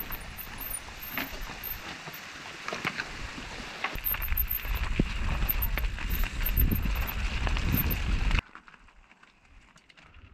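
Mountain bike descending a rocky, loose-gravel trail, heard from the rider's helmet: tyres running over stones and the bike rattling and knocking over rocks, with wind buffeting the microphone. The sound cuts off suddenly about eight seconds in and goes much quieter.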